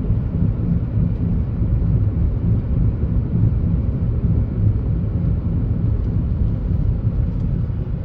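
Steady low vehicle rumble on a road: engine drone mixed with road noise.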